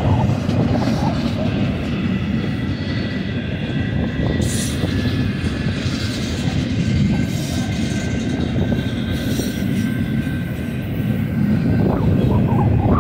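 BNSF double-stack intermodal train's well cars rolling past close by: a steady rumble of wheels on rail.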